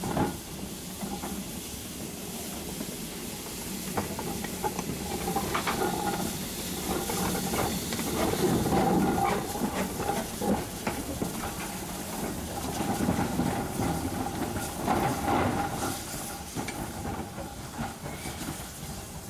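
Saddle-tank steam locomotive 'Slough Estates No. 3' passing at low speed with a carriage: steam hissing steadily, with the wheels clicking over the rails, loudest about halfway through as it goes by.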